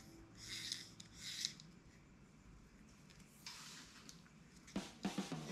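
Soft rubbing and rustling as a fly line and reel are handled, in three short bursts, followed by a few sharp clicks near the end.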